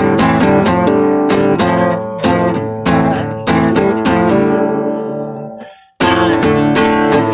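Music: strummed acoustic guitar with a steady rhythm. It dies away to silence a little over five seconds in and starts again abruptly about a second later.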